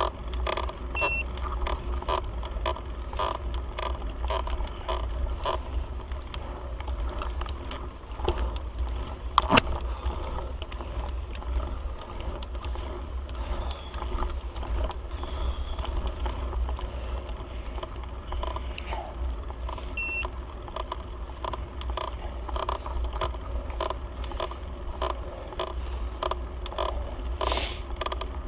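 Bicycle ridden up a steep climb: a fast, regular clicking and rattling from the bike over a steady low rumble, with one louder knock about nine seconds in.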